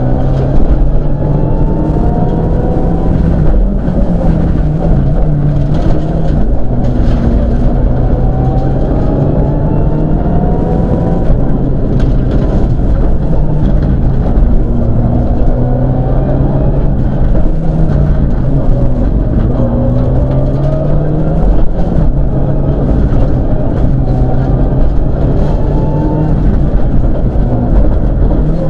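Mitsubishi Lancer Evolution IX rally car's turbocharged four-cylinder engine heard from inside the cabin under hard acceleration: the revs climb again and again and drop back at each gear change.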